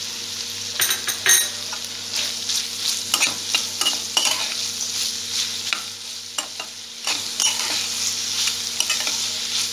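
Capsicum and onion pieces sizzling in oil in a metal kadai while a flat metal spatula stirs them. The spatula scrapes and clinks irregularly against the pan over the steady frying hiss, with the loudest scrape a little over a second in.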